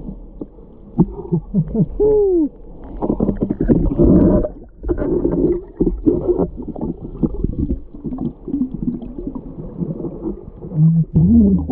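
Underwater sound of a diver in heavy surf: surging, churning water and bubbling with scattered knocks, plus a few short hoot-like tones that rise and fall in pitch, about a second in and again near the end.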